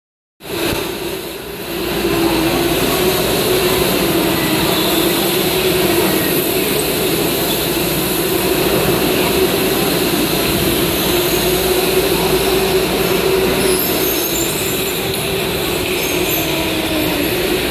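Electric go-karts running around an indoor track: a steady, loud whir with a wavering hum.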